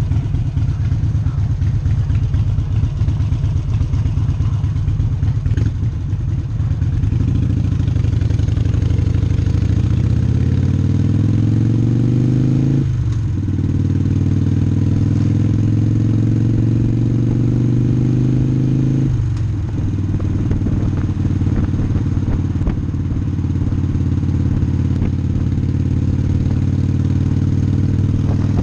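Harley-Davidson Sportster's air-cooled V-twin running at low revs with an uneven pulsing beat, then accelerating, its pitch rising through the gears. There are two sudden drops for upshifts, about 13 and 19 seconds in, before it settles to a steady cruise.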